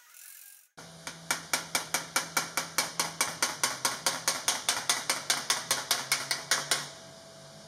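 Body hammer striking a tack-welded sheet-steel tailgate panel against a dolly, a rapid, even run of ringing metallic blows about five a second. This is hammer-on-dolly work straight after torch tack welding, to relieve the stress and shrinkage around the tacks. The blows start about a second in and stop shortly before the end.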